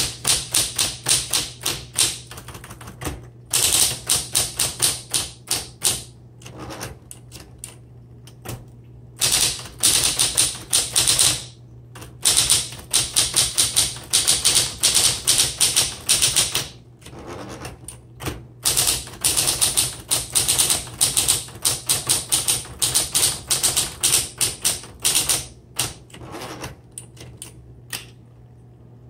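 Smith Corona Electra 110 electric typewriter being typed on in runs of rapid key strikes separated by short pauses, its motor humming steadily underneath.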